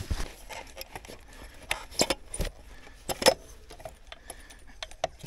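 Sharp clicks and clacks with jingling keys: an e-bike battery being unlocked with its key and swapped for a fresh one.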